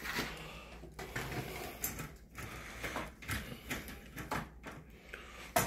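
Vertical window blind slats being pushed aside, clicking and rustling against each other in irregular light knocks, with one sharper click near the end.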